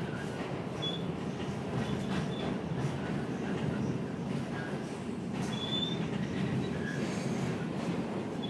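New York City subway car running, heard from inside the car: a steady rumble with short high-pitched wheel squeals about a second in and again about six seconds in.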